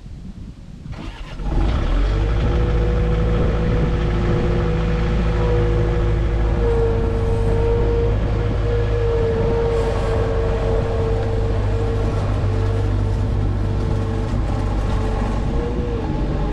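Skid steer engine coming up loudly about a second and a half in, then running steadily with a steady high whine over it.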